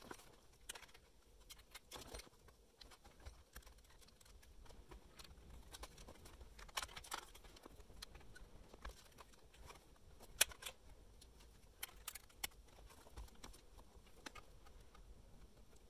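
Faint clicks and rustling of plastic wiring-harness plugs and cables being handled and pushed into the back of a car stereo head unit, with a sharper click about ten seconds in.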